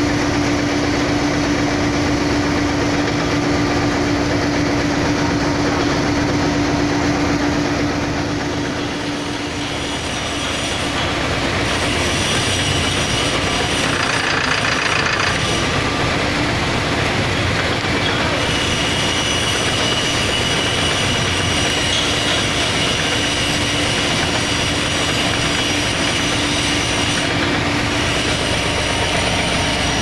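Loud, steady machinery running, with a steady hum in the first third and high whining tones through the later part.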